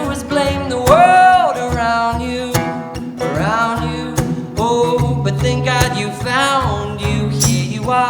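Background song: a voice singing over guitar and a steady beat.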